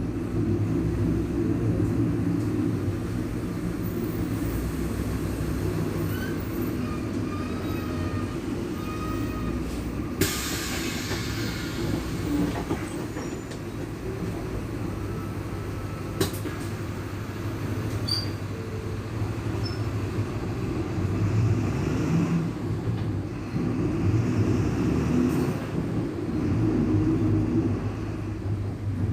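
VolksBus 17-230 EOD city bus running along, its MWM 6.12 TCE turbo-intercooled diesel engine droning with a loud growl from the differential. A brief hiss comes about ten seconds in.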